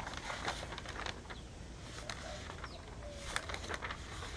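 Pages of a paper dictionary being leafed through, making short, irregular rustles and ticks. A faint bird call is heard once near the middle.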